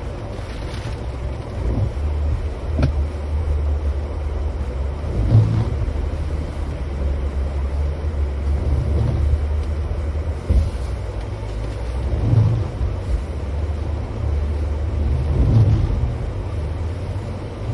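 Jeep Gladiator driving slowly along a muddy, rutted trail, heard from inside the cab: a steady low engine and road rumble, with a heavier thud every few seconds as it works through the ruts.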